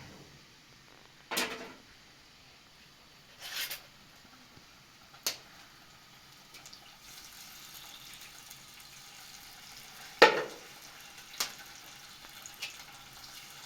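A handful of separate short knocks and clinks, like objects being handled and set down, the loudest about ten seconds in, over a faint steady hiss that grows slightly louder about halfway through.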